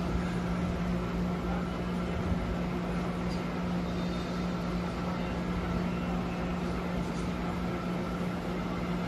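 Microwave oven running with its newly fitted magnetron, giving a steady electrical hum.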